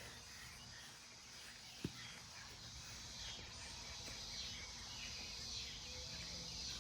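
Faint outdoor background noise with no speech, and a single soft tap just under two seconds in.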